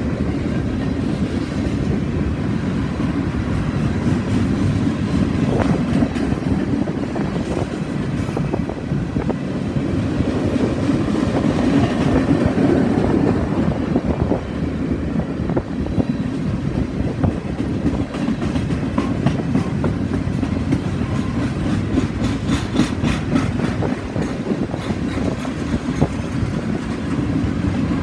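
Freight train of empty bulkhead flatcars rolling past: a steady rumble of steel wheels on the rails, with repeated clicking as the wheels cross rail joints, more of it near the end.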